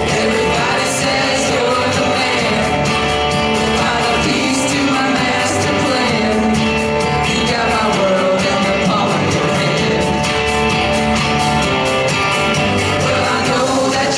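Two women singing karaoke into handheld microphones over a country-rock backing track, amplified through the bar's sound system.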